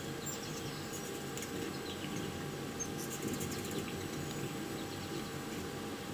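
Faint high chirps and ticks of a hummingbird over a steady hum, from hummingbird footage playing on a computer and heard through its speakers; the ticks cluster about three seconds in.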